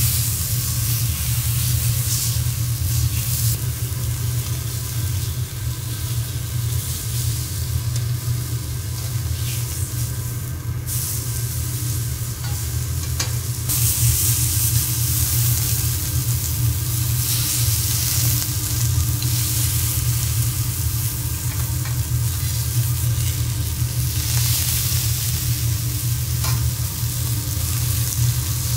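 Beef steak sizzling on a hot teppanyaki iron griddle, a steady frying hiss that eases for a few seconds about ten seconds in, over a steady low hum.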